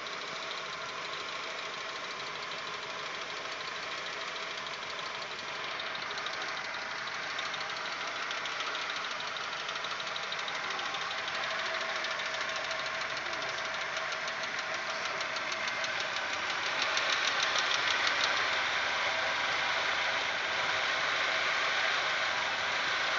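Audi 1.8-litre 90 hp petrol engine idling with a light, rapid ticking knock, which grows louder about two-thirds of the way through. The owner takes it for hydraulic lifter tapping that comes on once the engine is warm, although swapping the lifters did not cure it.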